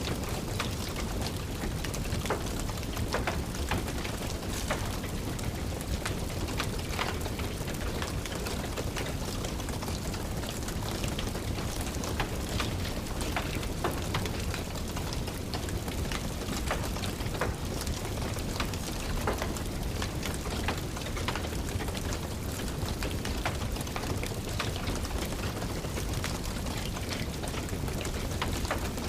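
Steady rain falling, mixed with a wood fire crackling in a fireplace: many small, sharp pops scattered irregularly over the even hiss of the rain.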